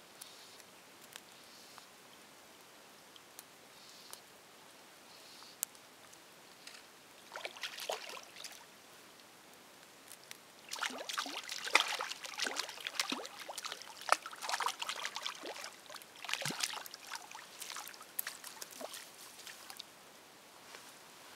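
A hooked grayling splashing at the surface close to the bank as it is played in and landed: a short flurry of splashes about seven seconds in, then a longer bout of irregular splashing from about eleven to nineteen seconds.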